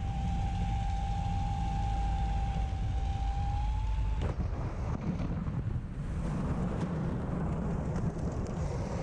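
P-51 Mustang sliding through a crop field in an engine-out forced landing: a deep rumble of the airframe running over the ground, with grain and stalks rushing and crackling against the canopy. A steady high tone sounds until about four seconds in, rising slightly, then cuts off with a click.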